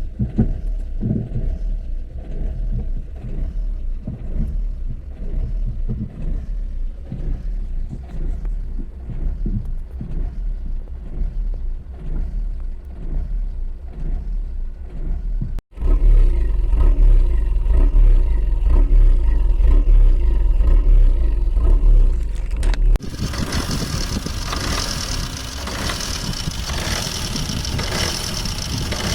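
Opel/Vauxhall Corsa D engine idling roughly with an uneven, pulsing beat, a rough idle put down to a faulty alternator. The sound cuts twice: about halfway through to a louder, deeper rumble, and about three quarters through to a brighter, noisier sound.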